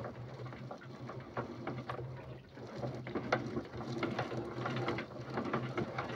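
Gill net being hauled in by hand over a boat's side: a quick, irregular rattle and clicking of mesh, plastic floats and mullet caught in the net, over a steady low hum.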